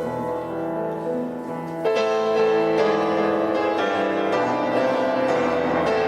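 Instrumental music led by piano, with held notes and chords; it grows louder as new chords come in about two seconds in.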